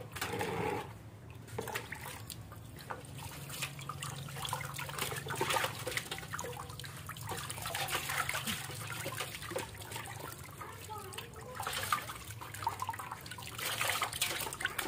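Water splashing and trickling in a metal basin as hands scoop it up and pour it over a puppy being bathed. The splashes come in irregular bursts throughout.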